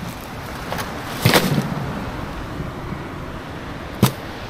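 A bag of ice cubes rustling and crunching as it is pushed into a plastic ice chest, loudest about a second in, with a sharp knock near the end, over steady wind and surf noise.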